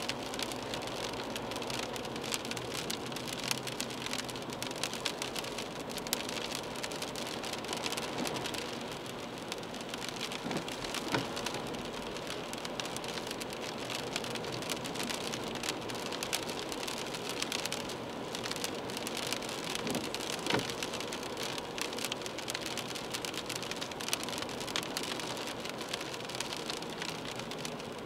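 Rain striking a moving car's windscreen and body, heard inside the cabin as a dense, steady spatter of small ticks over the hiss of tyres on a wet road.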